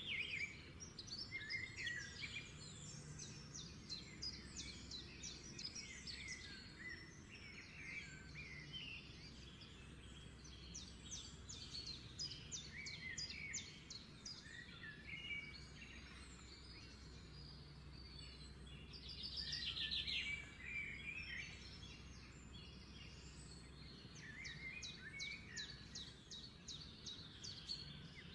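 Small birds chirping and trilling in the background, in many short calls, with a denser flurry about two-thirds of the way through, over a faint steady low hum.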